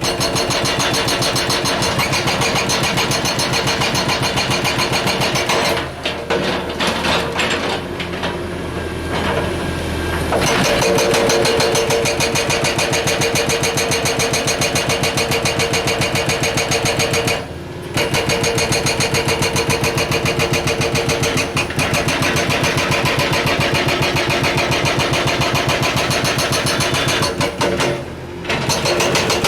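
Excavator-mounted hydraulic hammer breaking rock: a rapid, steady hammering of blows with the excavator's diesel engine running under it. The hammering turns irregular for a few seconds about six seconds in, leaving the engine more to the fore, and stops briefly twice more, around 17 and 28 seconds in.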